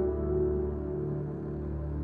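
Slow ambient relaxation music: sustained notes fading over a low steady drone.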